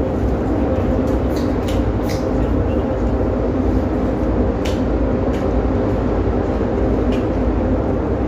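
Steady low drone of a ship's engines and machinery, with a few faint clinks of serving utensils.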